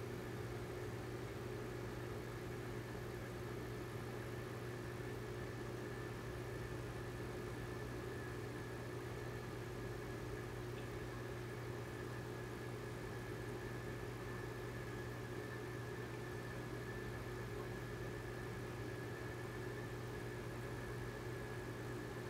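Steady, unchanging hum of an aquarium pump running.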